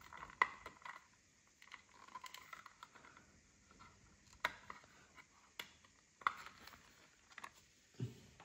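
Plastic clamshell case of a manual Audio-Technica CD cleaner being handled and prised open: faint scattered sharp plastic clicks and small scrapes, with a short knock near the end as the lid comes open.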